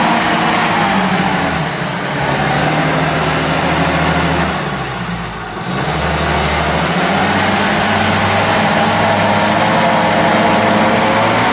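UAZ-469 off-roader's engine running under load as it drives through deep muddy ruts, the revs rising and falling, easing off briefly about halfway through and climbing again near the end.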